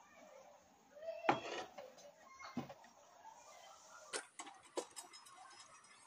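A few light knocks as a long steel bar is set down on a wooden workbench, then a quick run of sharper clicks as it is handled against the bench.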